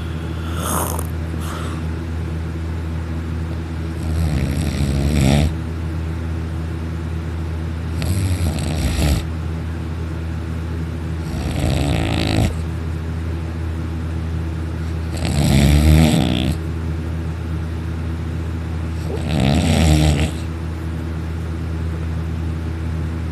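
A young man snoring heavily in deep sleep after taking sleeping pills. There are five loud snores, each about a second long and about four seconds apart, over a steady low hum.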